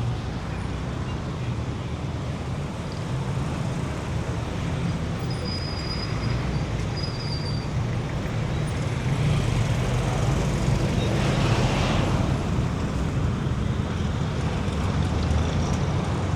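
City street traffic: a steady low rumble of engines and tyres, swelling louder as a vehicle passes close about ten to twelve seconds in. Two brief, faint high squeaks come a few seconds in.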